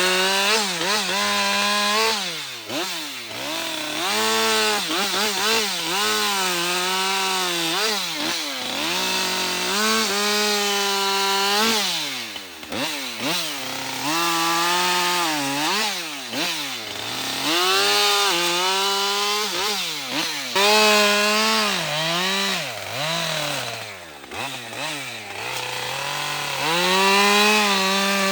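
Two-stroke gas chainsaw bucking limbs: the engine revs up and drops back over and over, its pitch rising and falling every second or two.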